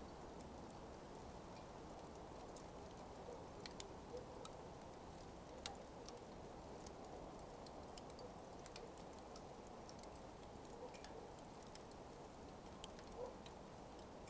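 Burning coals crackling faintly: scattered, irregular sharp ticks and small pops over a soft, steady background hiss.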